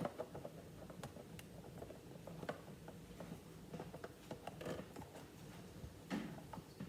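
Faint, irregular small clicks and scrapes of screws being driven by hand into the base of a build-it-yourself vending machine kit.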